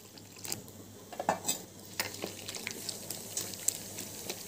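Gram flour (besan) and water being mixed by hand into a thick pakora batter in a ceramic plate, with irregular clicks and knocks against the dish.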